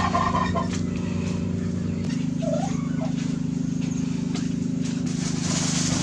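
A motor running steadily with a low, even hum, its tone shifting abruptly about two seconds in.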